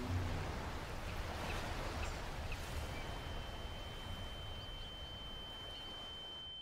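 Faint outdoor wind ambience with a few small scattered chirps. A little under halfway through, a single steady high-pitched ringing tone comes in and holds.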